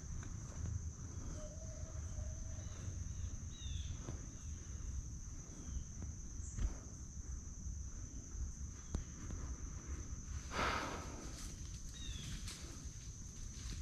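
Woodland ambience: a steady high-pitched insect drone, with a few short falling bird chirps and a brief rustle about ten and a half seconds in.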